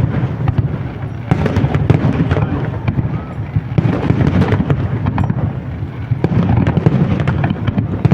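Fireworks display: a dense, continuous volley of crackling bursts and pops over a steady low rumble, swelling louder about a second in and again near the middle.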